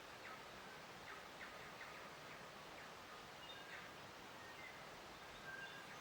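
Faint nature ambience: scattered short bird chirps and calls over a steady, even hiss of outdoor background.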